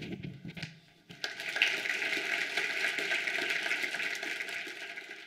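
Audience applauding, starting about a second in and fading out near the end.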